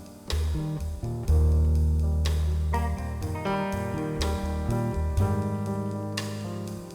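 Instrumental music: plucked guitar chords over a bass line, with light percussion.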